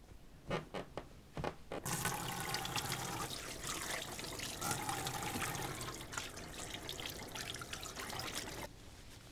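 A few short knocks, then a kitchen tap running into a stainless steel sink, splashing as hands are washed under the stream. The water starts about two seconds in and stops suddenly near the end.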